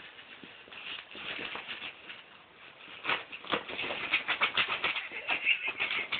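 A light fabric bag rustling and crinkling as a small puppy digs into it with its paws and head, a quick irregular scratching that gets louder about three seconds in.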